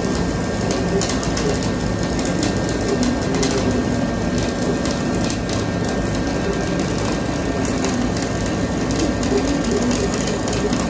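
Dual shield (gas-shielded flux-cored) welding arc crackling steadily as a build-up bead is run.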